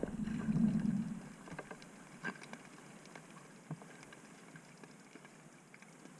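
Underwater sound picked up through a speargun-mounted camera's housing: a low rush of water for about the first second as the gun moves, then quiet water with a few scattered faint clicks.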